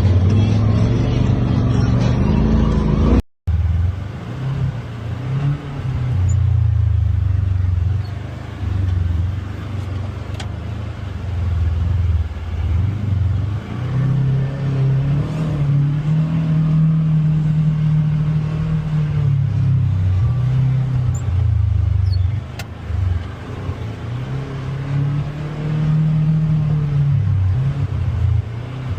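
Polaris Xpedition UTV engine running at low speed over rough trail, its pitch rising and falling with the throttle. There is a brief dropout a little over three seconds in.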